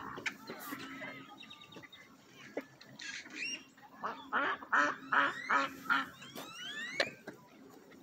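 Waterfowl calling: a run of about five loud, harsh calls in quick succession around the middle, then a few short rising calls, with fainter calls before them.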